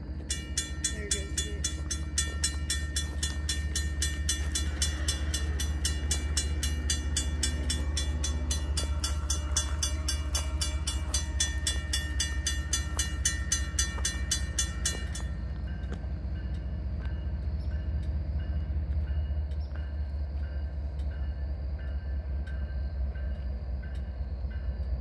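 Railroad grade-crossing warning bell ringing rapidly and steadily over the deep, steady rumble of a diesel locomotive approaching inside a long tunnel. The crossing bell stops abruptly about 15 seconds in, leaving the rumble and a fainter, slower ringing.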